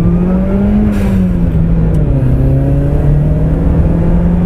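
Nissan Pulsar GTI-R's turbocharged SR20DET four-cylinder, heard from inside the cabin while driving: the engine note climbs to a peak about a second in, eases back and holds steady, then starts rising again near the end.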